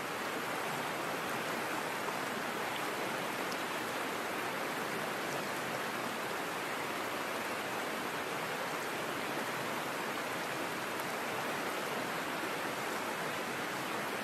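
Small creek flowing over a shallow riffle between logs: a steady, even rush of water.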